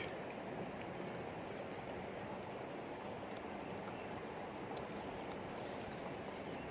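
River water flowing steadily, an even rushing hiss. A few faint, high, quickly falling chirps come in between about half a second and two seconds in.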